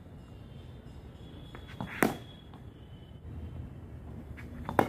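Sharp knocks of leather cricket ball and wooden bat in a practice net: one about two seconds in, then near the end a bowled ball being struck by the bat.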